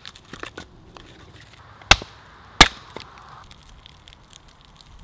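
Axe blows on a birch log on a chopping block: two sharp strikes about two thirds of a second apart, near the middle, followed by small clicks and cracks.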